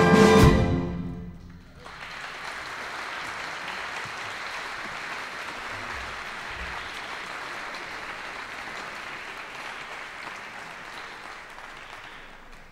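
A symphony orchestra's final chord, with a low drum stroke, rings out and dies away. About two seconds in the audience breaks into steady applause, which slowly fades near the end.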